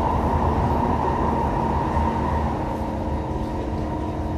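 Kawasaki Heavy Industries C151 metro train running, heard on board: a steady rumble of wheels on track with a steady electric hum, easing slightly in loudness in the last second or so.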